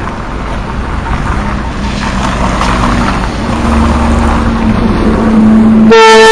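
NSB BM70 electric multiple unit rolling past at close range, a rumble with a steady hum, growing louder. Near the end its air horn sounds, a loud steady blast.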